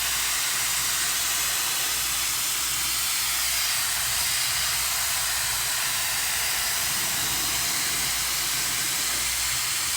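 High-speed air hair-dryer wand that dries and straightens at once, running at speed and blowing air with a steady hiss.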